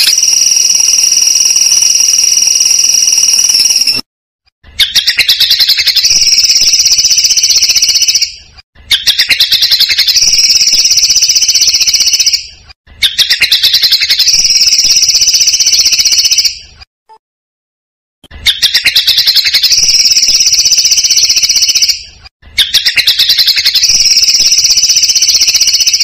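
Looped bird-training recording of a songbird repeating the same phrase about six times. Each phrase opens with a rapid ticking rattle and runs into a sustained, buzzy, drill-like trill, with a short pause between phrases and a longer one a little past halfway.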